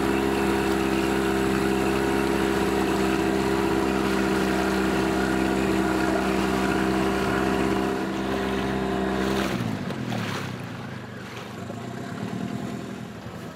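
Small outboard motor on a tender running at a steady speed. About two-thirds of the way through it is throttled back, and its pitch falls quickly as the revs drop.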